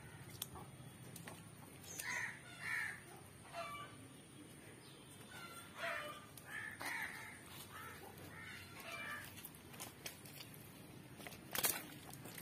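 A bird calling in short repeated calls, in two spells, over faint background noise, with a sharp knock near the end.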